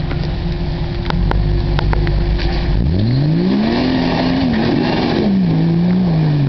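Jeep Wrangler engine pulling through a deep mud hole: a low steady rumble, then about three seconds in the revs climb and rise and fall as it ploughs on, with mud and water splashing.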